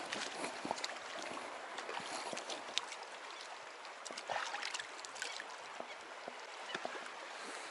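Shallow stream running over a pebble bed: a steady rushing hiss, with scattered small clicks and splashes.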